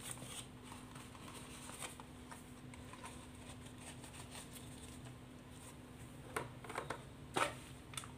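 Banana leaf rustling and crackling as it is folded into a cone and filled with batter, with a few sharper crackles about six to seven and a half seconds in. A faint steady hum sits underneath.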